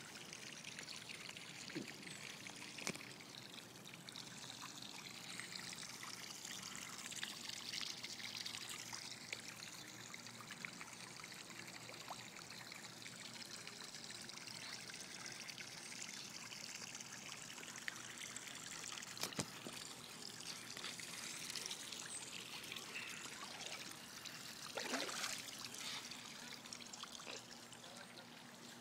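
Swimming-pool water heard with the microphone underwater: a steady trickling, rushing water noise, with a couple of brief knocks and a louder swish near the end.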